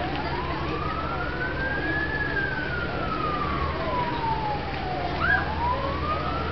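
A siren wailing in a slow rise and fall: rising for about two seconds, falling for about three, then rising again, over a steady low rumble. A short rising chirp sounds about five seconds in.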